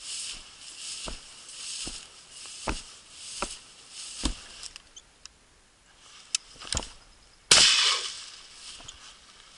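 Footsteps swishing through tall grass, a step about every 0.8 s. After a short pause and a couple of clicks from the gun being handled, a single sharp, loud shotgun shot sounds near the end and dies away over about a second.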